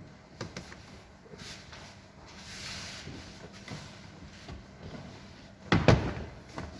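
Scattered clicks and knocks of tools and parts being handled while working on a car's front suspension, with one loud knock about six seconds in.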